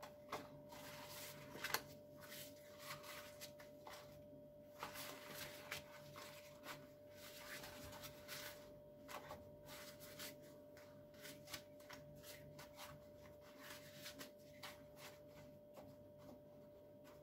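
Faint, scattered rustling and crackling of thin yufka pastry sheets, not very fresh, being torn by hand into pieces and laid in a frying pan, over a faint steady hum.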